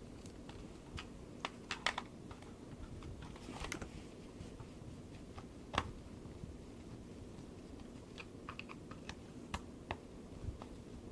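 Irregular small clicks and taps of a screwdriver, screws and hard plastic parts being handled while taking apart a toy RC truck's plastic transmission case. The clicks sit over a low steady hum, and the sharpest click comes about six seconds in.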